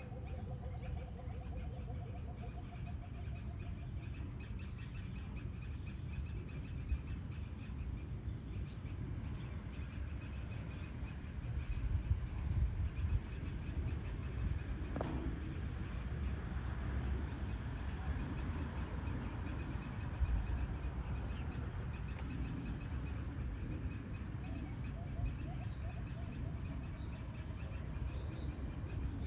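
Crickets and other insects calling together: a steady high drone with repeated chirping trills, over a constant low background rumble. A rapid pulsing call sounds in the first few seconds.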